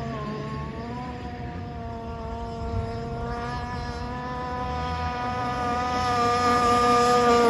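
Gas-powered RC boat's small two-stroke engine running at speed with a high buzz. Its pitch dips briefly near the start, then holds steady as it grows louder toward the end.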